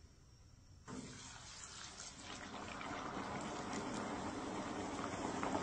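A basket of raw French fries drops into hot oil in a propane deep fryer: about a second in, the oil breaks into a sudden sizzling and bubbling that grows steadily louder. The fryer is loaded with too much oil or too many fries, which the cook judges left the oil close to overflowing.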